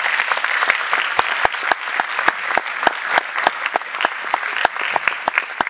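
Audience applauding: many hands clapping steadily, starting right after the closing thank-you of a talk.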